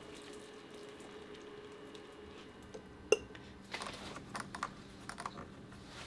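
Small glass dropper bottles being handled and set down on a wooden table: one sharp glass click about three seconds in, then a run of light clicks and taps.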